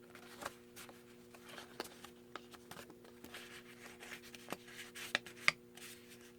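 Paper and card being handled: soft rustling with scattered light taps and clicks as tags are slid into a journal pocket. A couple of sharper clicks come about five seconds in.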